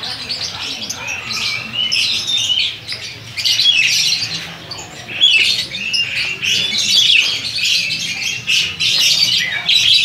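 Many caged lovebirds calling at once: shrill, overlapping chirps and squawks in a continuous chatter.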